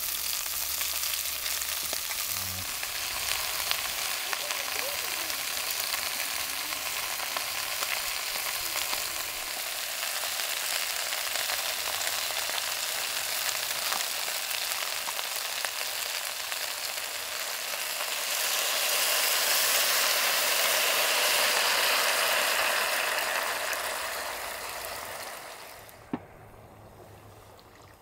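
Food sizzling in a pot on a portable gas cassette stove as vegetables are added. The sizzle grows louder about two-thirds of the way through, then falls away near the end with a single sharp click.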